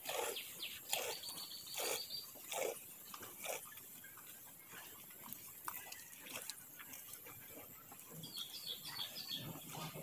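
Milk squirting from a cow's teats into a steel pail during hand milking, a hissing stream about once a second, strongest in the first few seconds. Small birds chirp in the background near the start and near the end.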